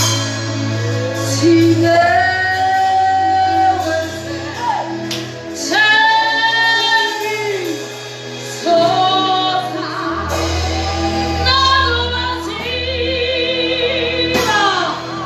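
Gospel singing led by a woman's voice, with long held, sliding notes over a sustained bass accompaniment that changes chord every few seconds.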